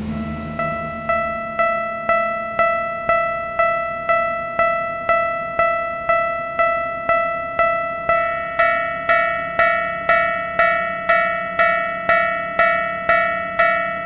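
Japanese railroad crossing alarm bell dinging steadily, about two strikes a second, each ding fading before the next. About eight seconds in, a second, brighter bell tone joins at the same pace.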